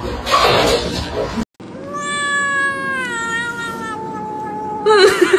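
A domestic cat's long meow, its pitch sliding slowly downward over about three seconds, followed near the end by a loud, wavering yowl. A short burst of noise comes first, in the opening second.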